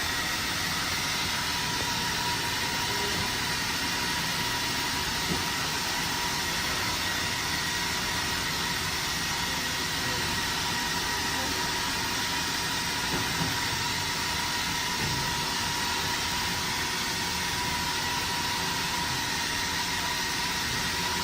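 Doosan DNM 750 vertical machining center running with a steady mechanical hum and a faint steady whine.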